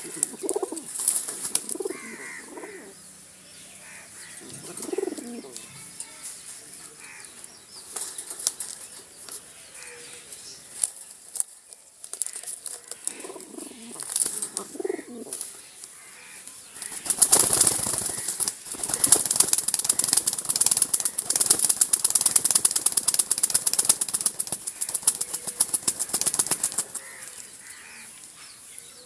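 Pigeons cooing in short low calls, then, about halfway through, a long stretch of rapid wing flapping and rustling that lasts about ten seconds.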